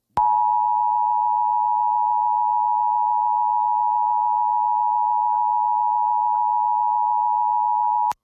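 Emergency Alert System attention signal: the steady two-tone alarm (853 and 960 Hz sounded together), broadcast over radio, held evenly for about eight seconds and cutting off abruptly. It announces an emergency alert, here the Required Monthly Test.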